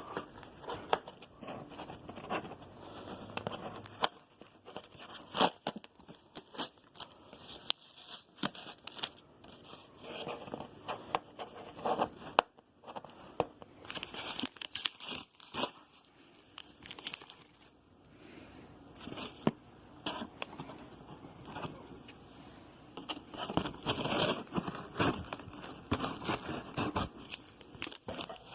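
Packing material crinkling and rustling in irregular bursts, with scrapes and small knocks, as a shipping box is unpacked.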